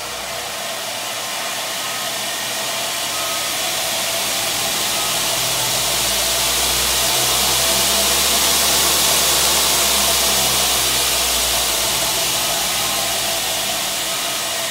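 Homemade 2x72 belt grinder driven by a 2.65 horsepower treadmill motor, its belt and wheels running with a steady rushing whir. The whir builds as the speed is turned up, peaks about nine seconds in, and eases off over the last few seconds as the speed is run down.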